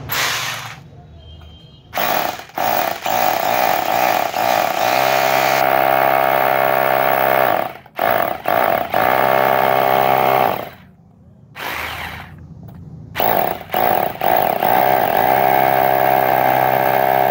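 Ralli Wolf 2-26 hammer drill, newly fitted with a replacement armature, test-run under its trigger: a loud, steady motor whine that starts and stops several times, in runs of a few seconds with short blips between. The mechanic finds it vibrating heavily, which he puts down to play in the tool holder.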